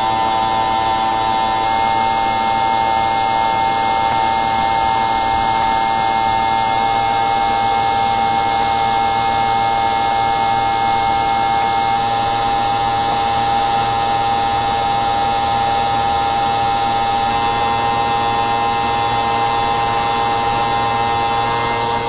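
A machine running with a steady, loud whine made of several fixed high tones over a noisy hum, unchanging throughout.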